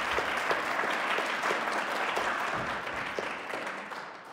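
Audience applauding, with many claps at once; the applause fades out near the end.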